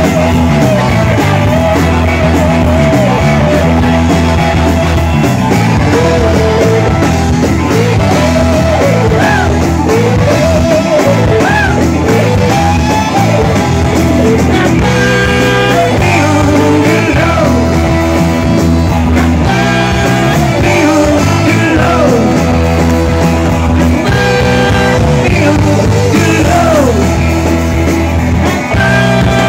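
Live rock band playing loud, with electric guitar, tenor saxophone and drums, and a voice singing.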